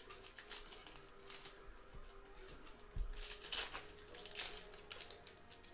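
2020 Panini Contenders Football trading-card pack wrappers crinkling and tearing as packs are torn open by hand, with cards rustling. There is a sharper knock about three seconds in.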